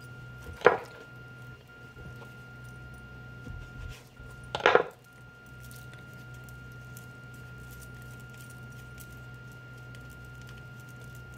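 Two short knocks of kitchenware against a wooden cutting board, about a second in and again about five seconds in, the second a little longer. A steady low electrical hum runs underneath.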